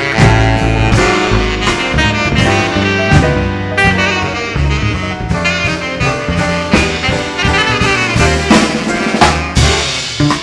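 Live band music with a horn melody over a drum kit.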